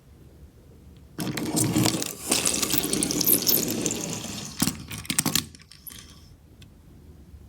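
A dense rattling clatter of many Tomica die-cast toy cars together, starting about a second in and stopping sharply after about four seconds, with a few stray clicks after.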